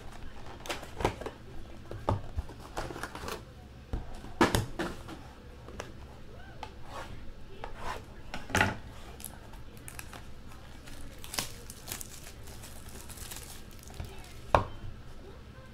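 Trading-card boxes being opened by hand: plastic shrink-wrap crinkling and tearing, with sharp cardboard taps and knocks. The loudest knocks come a little past four seconds, around eight and a half seconds and near the end.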